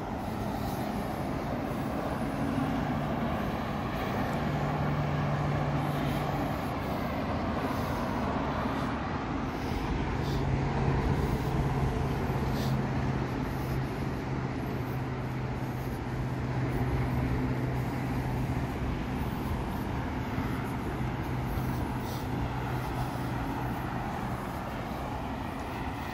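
Steady rumble of vehicle traffic, with a low engine hum that swells in twice.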